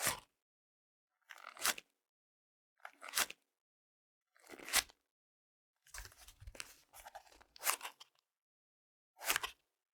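A cigarette pack being opened by hand: short bursts of crinkling and tearing about every second and a half, with a longer stretch of crinkling and tearing in the middle.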